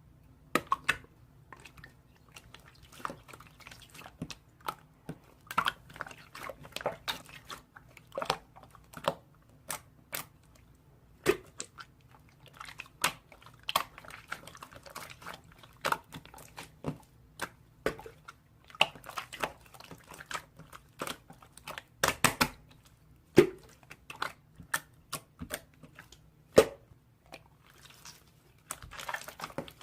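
Slime being squished and poked by hand, giving a dense, irregular stream of sticky clicks and pops.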